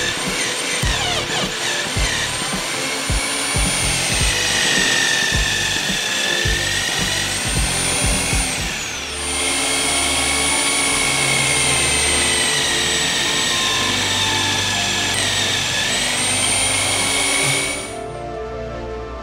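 Bosch PBD 40 drill press running, its motor whine sagging and recovering in pitch as a Forstner bit bores into plywood, over background music. The whine breaks off briefly about nine seconds in and stops near the end.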